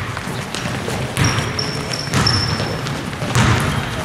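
Basketball sneakers squeaking on a hardwood gym floor in several short, high squeaks, with dull thuds from running feet and a bouncing ball.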